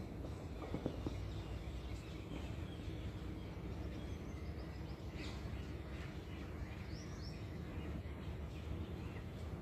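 Steady low outdoor background noise with a few faint, short, high bird chirps, around five and again around seven seconds in.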